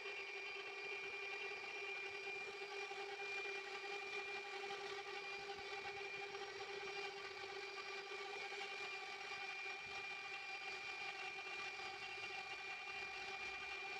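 A motor whirring steadily at one constant pitch, with no change in speed.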